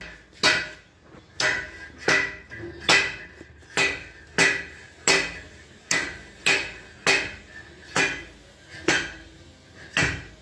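Steady hammer blows on steel, about three every two seconds, each with a short metallic ring: hammering from the far end to drive the inner stage out of a Hyva FE129-3 telescopic tipper hoist cylinder.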